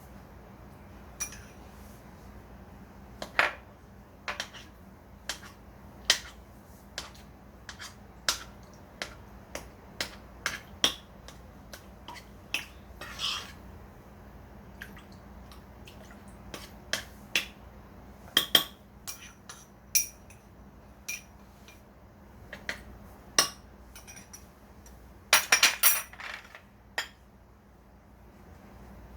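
Cutlery clinking and tapping against dishes at irregular intervals, with a quick flurry of clatter near the end.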